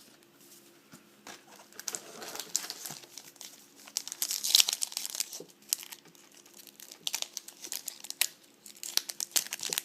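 Foil wrapper of a trading-card pack crinkling and crackling in irregular bursts as it is worked and torn open by hand, busiest about halfway through.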